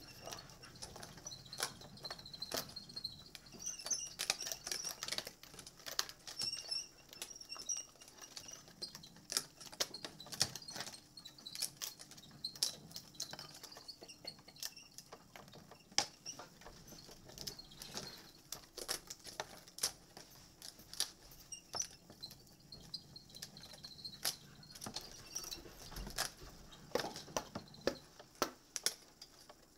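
Irregular small clicks, taps and rustling of hands handling the small parts and packets of a Transformers model kit.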